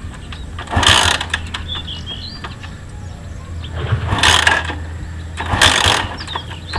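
Rusi motorcycle with sidecar being kick-started: three kicks, about a second in, at about four seconds and near the end. Each is a short rattling burst as the engine turns over without starting.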